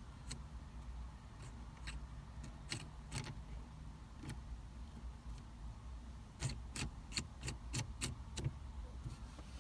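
Irregular sharp clicks and light clinks of small shift-knob parts being handled, coming thickest a little past the middle, over a steady low hum.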